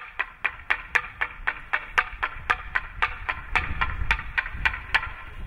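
Hand-held wooden semantron (klepalo), a long wooden plank struck with a mallet in a quick, even rhythm of about four sharp knocks a second, the signal calling the monks to service. A low rumble comes in under the knocks about midway.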